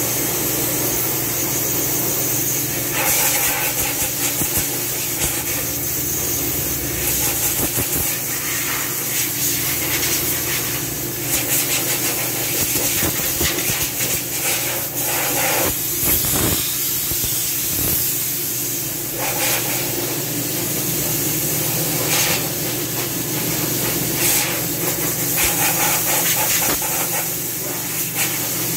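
Compressed air from a hose nozzle blowing dust out of an air compressor's cabinet: a hiss that starts and stops in stretches of a few seconds, over a steady machine hum.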